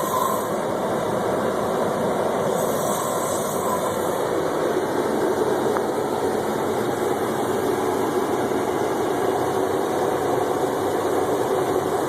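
A sleeping person snoring steadily.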